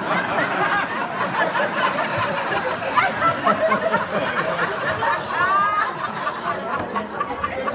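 Audience laughing together, steady throughout, with one voice rising briefly above the crowd about five seconds in.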